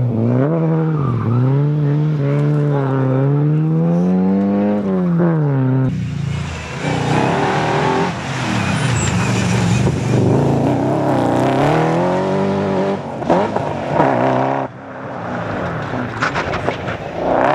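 Rally car engine revving hard, its pitch rising and falling again and again with throttle and gear changes. From about six seconds in a loud hiss of tyre noise joins it, and the sound drops off sharply near the end before picking up again.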